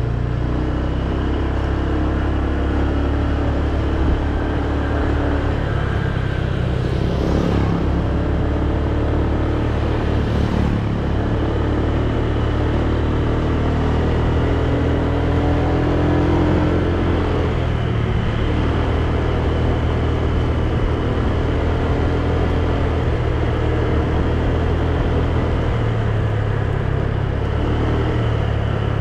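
Motorbike engine running steadily while riding along a paved road, heard from the rider's seat with road and wind noise. Two faint brief hisses come about a quarter and a third of the way through.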